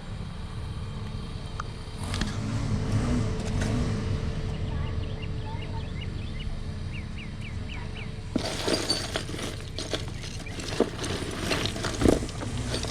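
Pieces of costume jewelry clinking and rattling as they are rummaged through in a box, with a flurry of sharp clinks starting about eight seconds in over a steady low hum.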